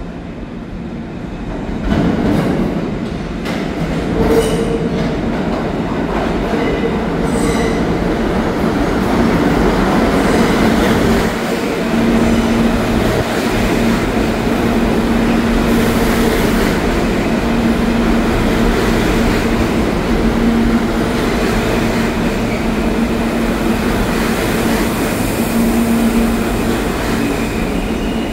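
New York City subway F train pulling into an underground station and running along the platform. The noise builds over the first two seconds as it comes out of the tunnel, then stays loud and steady with a whining tone over the rail noise.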